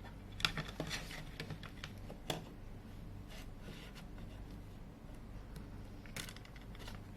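Small sharp clicks and taps of tools and phone parts being handled, a quick run of them in the first two and a half seconds and another short cluster about six seconds in, over a low steady hum.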